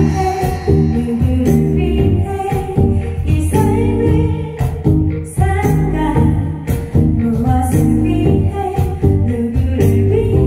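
A woman singing live into a microphone, backed by a band with electric bass guitar and drums keeping a steady beat.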